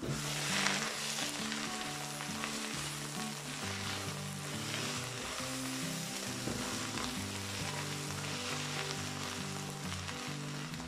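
Sauerkraut sizzling in oil in a pot as the last of its cooking water boils off and it starts to fry, a little louder about a second in. Soft background music plays underneath.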